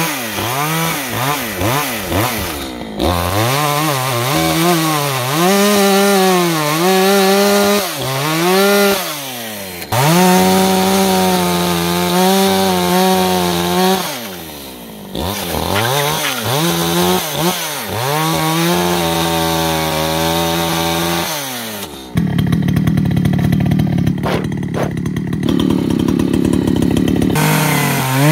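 Echo CS-620P chainsaw cutting firewood, revved to full throttle in long pulls that dip briefly back toward idle between them. Near the end it runs lower and rougher for several seconds with a crackling texture, then returns to full revs.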